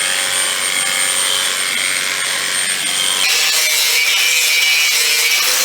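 Electric cattle clippers running steadily while shaving a cow's coat, with a change in tone about three seconds in.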